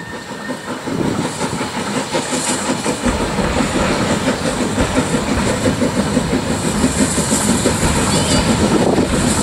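Saddle-tank steam locomotive approaching under power, its exhaust chuffing in a steady rhythm and getting louder as it nears, with a deeper rumble joining about three seconds in.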